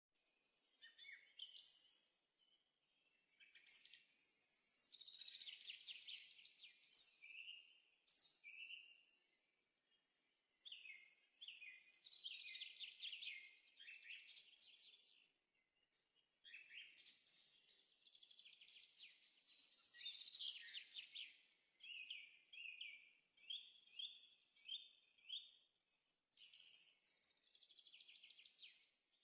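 A songbird singing faint, rapid chirping and trilling phrases, each a few seconds long, broken by short pauses.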